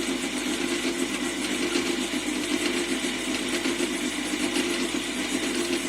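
Metal lathe running steadily, a constant hum from its motor and gearing.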